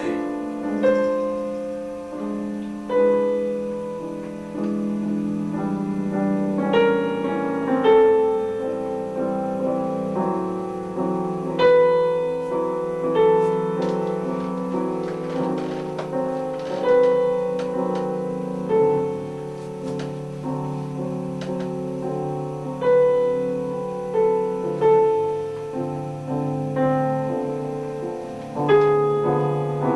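Solo piano playing a slow piece: chords and melody notes struck every second or two, each ringing on and fading.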